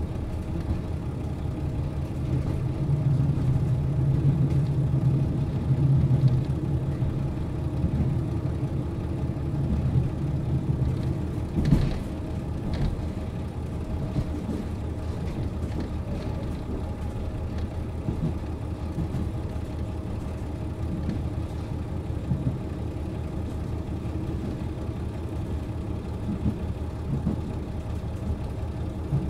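KiHa 40 series diesel railcar's engine idling steadily at a standstill, its low hum swelling for a few seconds near the start. A single short knock about twelve seconds in.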